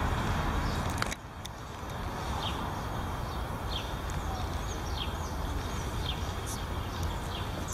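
Steady city traffic rumble, which drops off suddenly about a second in to a quieter hum. Over the hum a bird repeats short, falling chirps about once a second.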